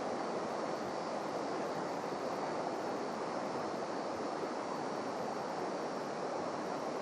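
Steady rushing of a small mountain stream running full and muddy after heavy rain.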